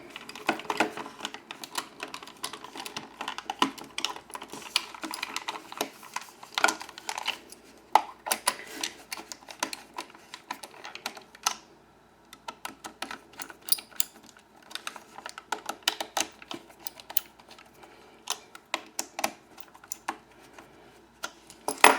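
Small screws being tightened with a screwdriver into the plastic back plate of a G1 Transformers Blaster toy: a long run of irregular small clicks and ticks, with a short pause about halfway.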